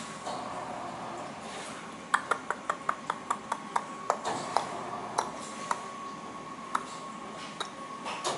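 A quick run of sharp clicks, about five a second, starting about two seconds in, then a few scattered single clicks, over a faint steady high-pitched tone.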